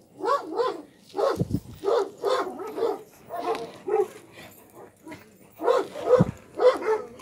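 Kangal puppies barking and yipping: a quick series of short, high-pitched barks, with a brief pause around the fifth second.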